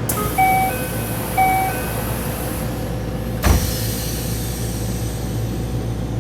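Yokohama Blue Line 4000 series subway train's door chime: a two-note chime played twice, then the doors shut with a single thump about three and a half seconds in. The car's steady hum runs underneath.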